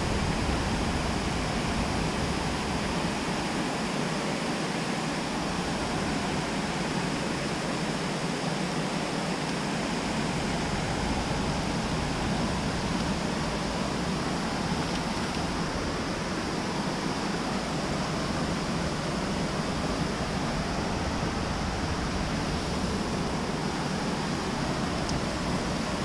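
Steady rushing of a mountain creek's water running over rocks and stones.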